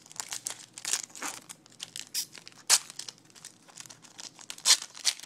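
Foil wrapper of a 2012 Bowman baseball card pack being torn open and crinkled by hand: a run of sharp crackles, two of them much louder, about two and a half seconds in and near the end.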